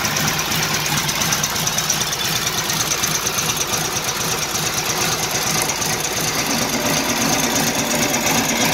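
1940 Harley-Davidson UH 80-cubic-inch flathead V-twin idling steadily. It is running rich, which the owner suspects comes from the carburetor float being set too high.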